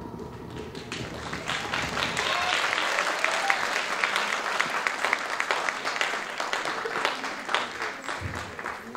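Theatre audience applauding as the performance music fades out; the clapping swells about a second in and begins to die down near the end.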